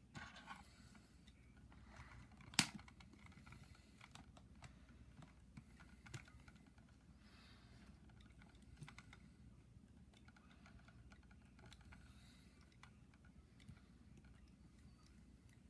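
Faint, scattered small clicks and taps of a 1/6-scale Hot Toys Robocop figure being handled and its joints posed, with one sharper click about two and a half seconds in.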